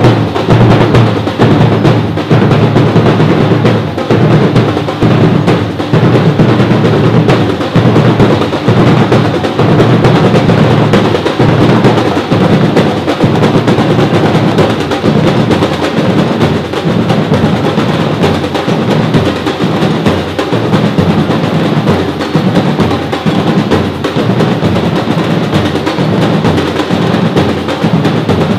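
Brazilian percussion group drumming together in a steady, driving rhythm of many drums.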